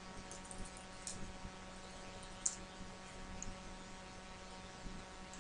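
Faint computer keyboard keystrokes, a few scattered clicks, over a low steady hum.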